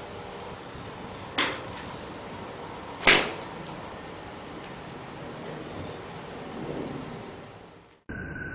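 Two sharp cracks of golf clubs striking balls at a driving range, about a second and a half apart, the second louder. A steady high-pitched tone runs under them, and the sound fades and cuts off shortly before the end.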